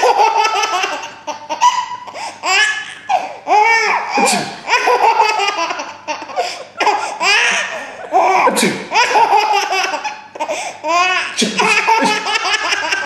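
A young child laughing hard in repeated high-pitched bouts, each a run of rising and falling peals with short breaths between them.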